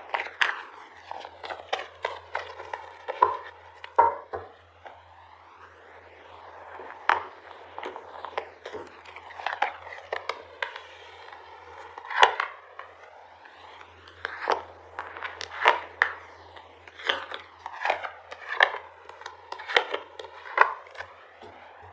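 Tarot cards being handled: shuffled and set down on a table, an irregular series of soft snaps and slaps, a few of them louder.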